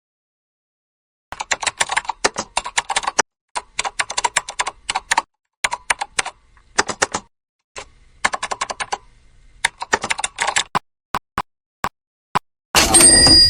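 Rapid runs of light, sharp clicks and taps of plastic being handled, as in unboxing an action figure and its packaging. The clicks thin out to single ticks, then a short loud hiss with high steady tones comes near the end.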